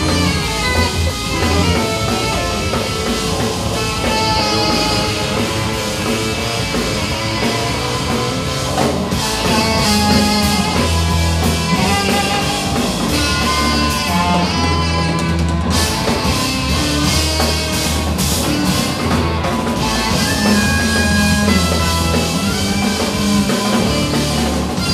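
Live band playing: drum kit, bass guitar and electric guitar in a dense, loud, continuous piece.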